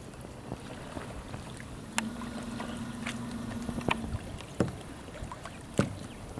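Water lapping against a kayak's hull, with several sharp knocks and clicks scattered through it and a faint steady hum for a couple of seconds in the middle.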